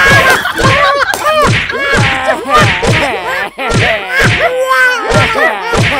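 Slapstick comedy sound effects: a rapid run of whacks and thuds, about two a second, each paired with a springy tone that bends up and down in pitch.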